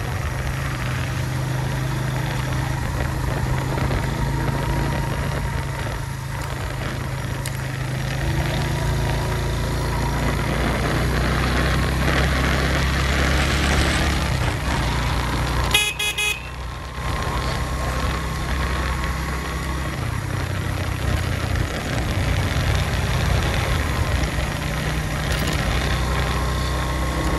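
Suzuki GS150's single-cylinder four-stroke engine running steadily under way, with a short horn toot about 16 seconds in.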